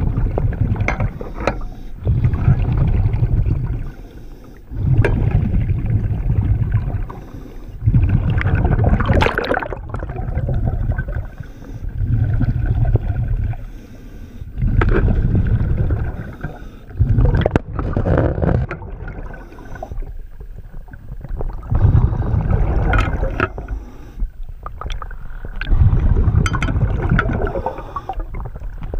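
A diver's breathing through a regulator, heard underwater: a rumbling gush of exhaled bubbles every few seconds, with occasional sharp clicks in between.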